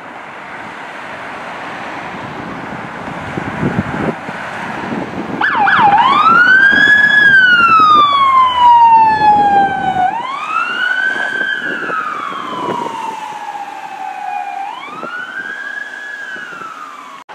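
Electronic siren on a fire department brush truck, sounding a slow wail. It comes in about five seconds in with a quick rising chirp, then sweeps up and slowly falls in three long cycles, loudest in the first. Before it starts there is engine and traffic noise, which builds up and then carries on underneath the siren.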